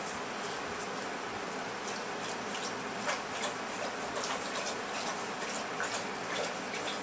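Eight-week-old Alaskan Malamute puppies scuffling on a concrete floor strewn with wood shavings: irregular light clicks and scratches of claws and scattering shavings, busier from about halfway, over a steady background hiss.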